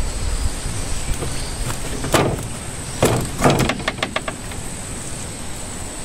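A hooked fish landed by hand: a splash about two seconds in, then a quick flurry of splashes and slaps as it thrashes while being pulled from the water.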